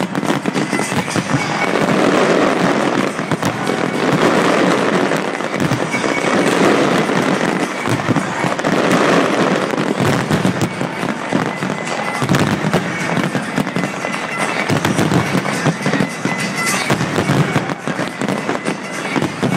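Large fireworks display in full barrage: a loud, unbroken run of bangs and crackling bursts, one on top of another.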